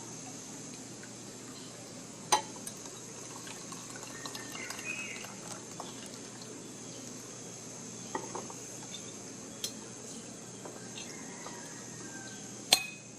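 Outdoor forest ambience with a steady high insect buzz, broken by three sharp clicks, the loudest near the end.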